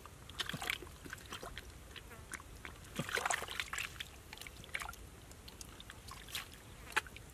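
Hands scooping wet mud and water in a hole in the ground, giving irregular squelches, small splashes and crackles, with a louder, busier spell about three seconds in.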